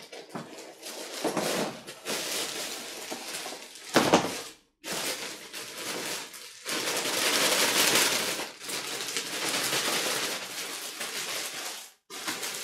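Thin plastic bag crinkling and rustling as it is pulled off a tree's root ball and crumpled up, with a sharp knock about four seconds in.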